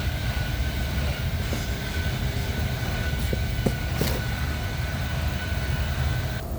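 Steady low mechanical rumble with a constant high whine running over it and a few light clicks about halfway through; the whine cuts off suddenly just before the end.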